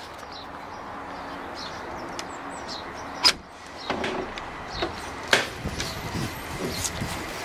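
A pen door's latch clacks sharply about three seconds in as the door is opened, with another sharp knock about two seconds later and smaller clicks between, over a steady outdoor background hiss with faint bird chirps.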